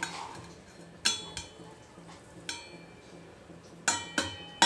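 Stainless steel plate knocked against the rim of a steel bowl to tip spice powders off it: several light metallic clinks, each ringing briefly.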